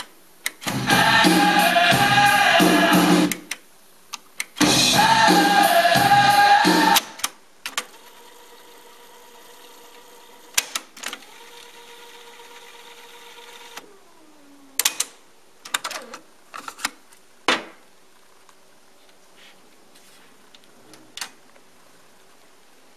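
JVC KD-A11 cassette deck playing back a music tape that cuts out and comes back twice with key clicks, then rewinding: a steady motor-and-tape whine for about seven seconds that drops in pitch as it winds down. Several mechanical clunks of the transport keys and the eject door follow.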